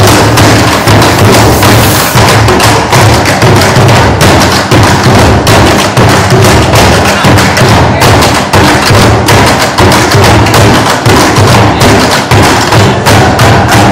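Several drums made from recycled bins, slung and struck with sticks dhol-style, playing a loud, steady, driving bhangra rhythm together.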